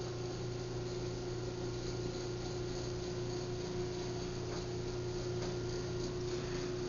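Craftsman half-horsepower chain-drive garage door opener running an opening cycle, its motor and chain drive giving a steady hum.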